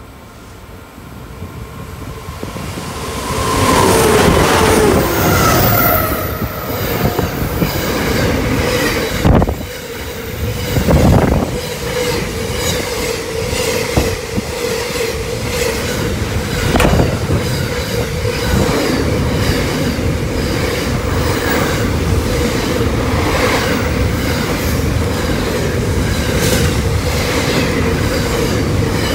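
Diesel-hauled container freight train approaching and passing close by. The locomotives' engines build up and fall in pitch as they go by about four seconds in. Then the container wagons roll past with a steady rumble, a steady wheel squeal and sharp clacks of wheels over the rail joints.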